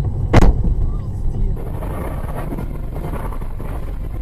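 A single loud bang about half a second in, the impact of a car collision picked up by a dash cam over steady road and engine rumble, followed by a smaller knock. About a second and a half in the sound changes to a different steady rumble of a moving vehicle with wind noise.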